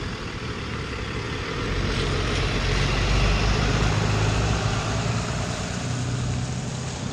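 A pickup truck with a stake-sided flatbed drives past close by. Its engine and tyre noise grow louder to a peak about three to four seconds in, then fade.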